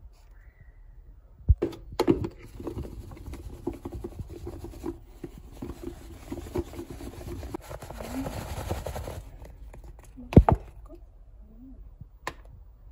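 Tofu cubes and starch powder being shaken inside a closed side-dish container: a dense rattling, rustling clatter lasting about seven seconds. There is a sharp click just before the shaking and another loud click after it.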